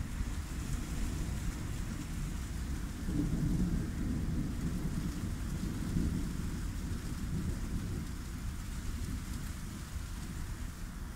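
Thunder rolling through a thunderstorm over steady rain, the rumble swelling about three seconds in and again around six seconds.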